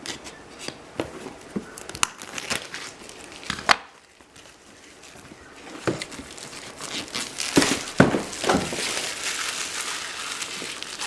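Plastic packaging crinkling and rustling as it is handled, with sharp clicks and knocks: a few clicks first, then a long stretch of dense crinkling in the second half.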